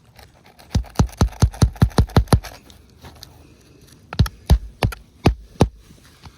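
Hammer blows: a quick run of about eight sharp strikes, a pause of nearly two seconds, then five more.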